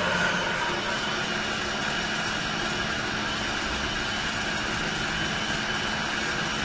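Commercial electric coffee grinder running steadily as it grinds whole coffee beans mixed with cardamom pods.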